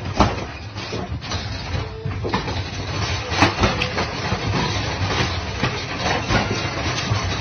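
Two cats fighting inside a wire crate, the metal crate rattling and knocking continuously as they tumble against its bars and floor tray.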